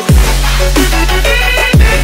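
Nightcore (sped-up, pitched-up) electronic dance track. A heavy sub-bass drop comes in right at the start, with deep bass hits that fall sharply in pitch, a held bass note, and high synth chords near the end.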